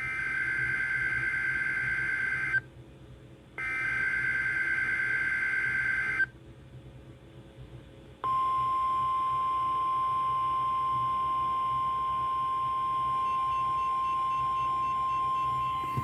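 NOAA Weather Radio Emergency Alert System signal: two bursts of the SAME digital header, each a buzzing data tone about two and a half seconds long, a second apart. About two seconds after the second burst comes the steady single-pitch 1050 Hz warning alarm tone, which holds to the end. Together they announce a new alert, here a tornado watch.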